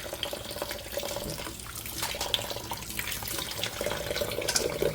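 Kitchen tap running into a sink while raw layer-hen pieces are rinsed under it, with water splashing and a few light knocks.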